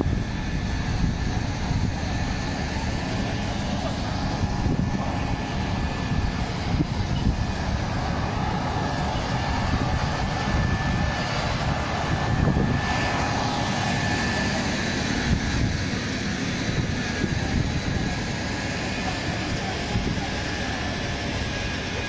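Steady engine drone of a fire engine running its water pump, with a faint constant whine above it and wind buffeting the microphone.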